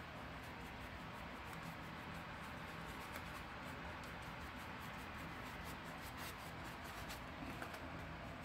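Faint scratchy strokes of a paintbrush brushing acrylic paint onto a craft pumpkin, repeated in quick succession, over a steady low hum.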